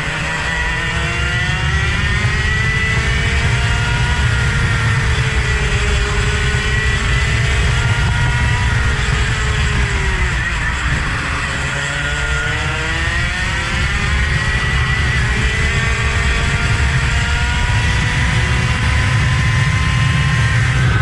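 A vehicle engine revving hard around a race circuit. Its pitch climbs and falls back in steps as it changes gear, drops low around halfway as it slows for a corner, then climbs again, over a heavy low rumble.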